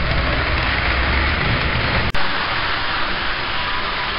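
HO scale model train running on the layout: a steady whirring rumble of its motor and wheels on the track. The sound breaks off for an instant about two seconds in and comes back with less low rumble.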